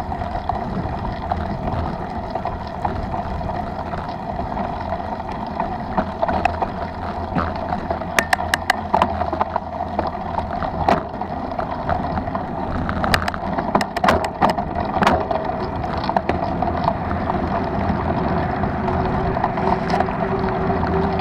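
Wind rushing over the microphone and the rolling rattle of a mountain bike ridden fast over a gravel road and then asphalt. Clusters of sharp clicks and knocks come about eight seconds in and again around thirteen to fifteen seconds, and a faint steady hum joins near the end.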